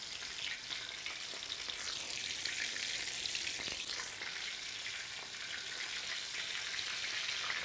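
Breaded oysters deep-frying in hot vegetable oil in a plow-disc discada: a steady hissing sizzle.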